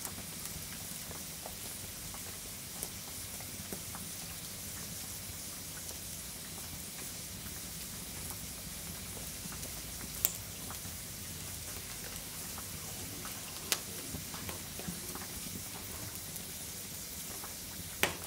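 A pan of hot fat with melting dark chocolate sizzling steadily over campfire embers. A few sharp crackles stand out about ten, fourteen and eighteen seconds in.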